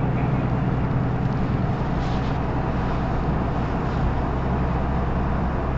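Isuzu Erga Mio (PKG-LR234N2) city bus heard from inside the passenger cabin: its diesel engine runs with a steady low hum and an even rumble, holding the same pitch throughout.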